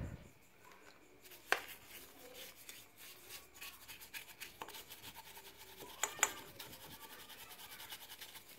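Paintbrush wet with petrol scrubbing the aluminium cooling fins of a Suzuki Thunder's air-cooled cylinder, a rapid scratchy brushing that starts about a second in. Sharper knocks come about one and a half seconds in and again about six seconds in as the brush strikes the fins.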